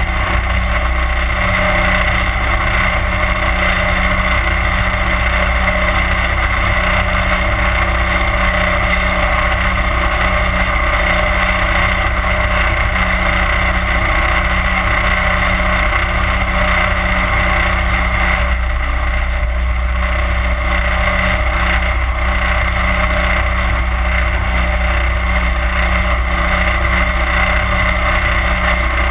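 A 31 hp Mud Buddy Hyperdrive surface-drive mud motor running steadily at cruising speed, pushing an 18-foot Gator Trax jon boat, loud and unchanging throughout.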